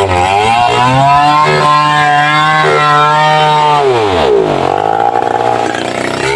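Chainsaw engine held at high revs, then throttled back about four seconds in, its pitch falling to a lower steady running speed.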